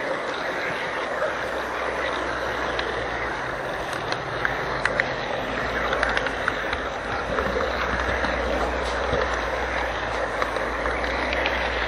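HO-scale model train running along the track, heard up close from a small camera riding on the train: a steady running noise with a low hum and scattered light clicks of the wheels on the rails.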